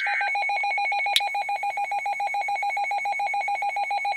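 NOAA Weather Radio emergency alert: the tail of the buzzy SAME data burst, then a rapid beeping alarm of about ten beeps a second, signalling an incoming flood warning. A single sharp click about a second in.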